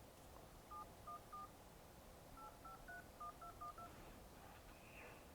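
Faint touch-tone (DTMF) keypad beeps from an iPhone 11 Pro dialing a phone number: ten short two-tone beeps, three in a row, a pause of about a second, then seven in quick succession.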